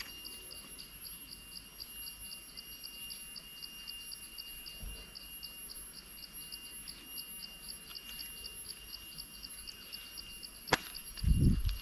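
Insects chirping in an even pulse of about five a second over a steady high drone. Near the end comes a sharp click, then a short, loud low thump.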